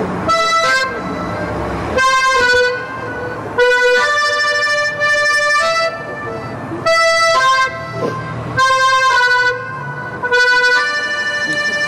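Accordion playing a series of held chords, each about one to two seconds long, with brief breaks between them.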